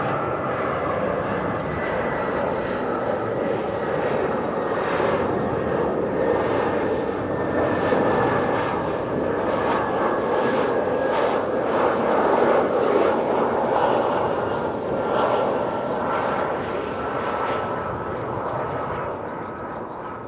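Airbus A320-214's CFM56 turbofan engines on landing approach: a steady jet rumble with a thin high whine that slowly falls in pitch. It is loudest about halfway through and fades toward the end.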